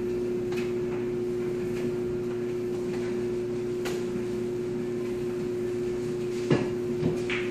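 A steady low hum with a few sharp clicks of pool balls knocking, the loudest about six and a half seconds in and two smaller ones just after.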